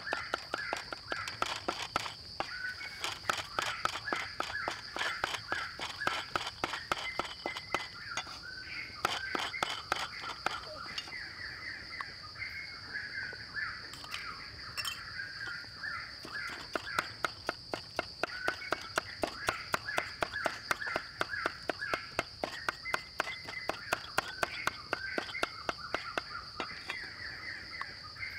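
Meat cleaver chopping rapidly on a wooden chopping board, mincing grilled meat with herbs: quick regular knocks, about four a second, that thin out for a few seconds in the middle and then pick up again. A steady high-pitched hum runs underneath.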